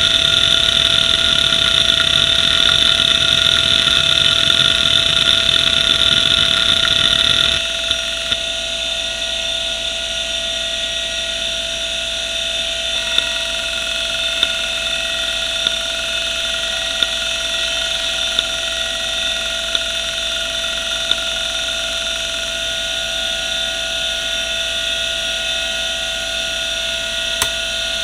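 Western Digital Caviar 1170 3.5-inch hard drive rattling busily as its heads seek at random across the platters. About seven and a half seconds in the seeking stops abruptly, leaving the steady whine of the spindle on its rough, worn bearings, with a single light head click about every second and a half as the drive reads straight through the disk.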